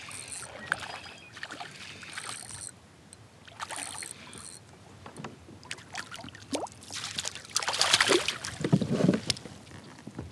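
A hooked crappie splashing at the water's surface as it is reeled in beside a kayak, with the loudest splashing about seven to nine seconds in as it is scooped into a landing net.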